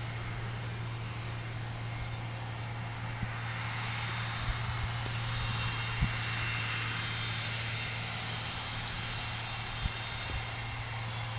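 ARTEC F40 self-propelled sprayer's diesel engine running as the machine drives: a steady low hum with a rushing hiss that swells in the middle, and a few faint knocks.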